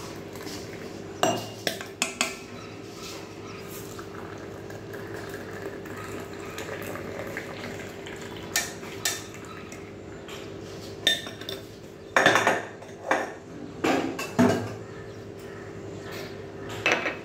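Steel saucepan and metal tea strainer clinking and knocking against each other and the mugs as hot tea is poured through the strainer, in scattered sharp strokes that come thickest in the second half. A steady low hum runs underneath.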